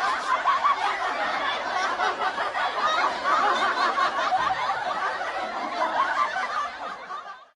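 Many people laughing together, a crowd-laughter sound effect, dense and overlapping, easing off and fading out near the end.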